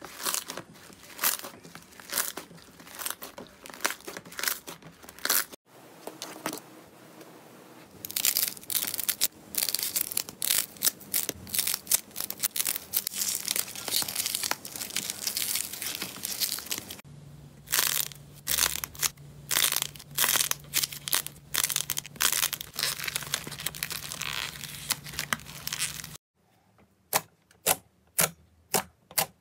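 Slime being squeezed, stretched and pressed by hands: dense sticky crackling with many small pops and clicks, changing abruptly a few times. Near the end, pink bubble slime pressed with the fingertips gives sharp, separate pops.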